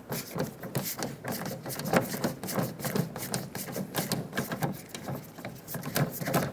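Rapid, irregular clicking and light rattling of a screwdriver backing a Phillips screw out of the plastic door-handle trim.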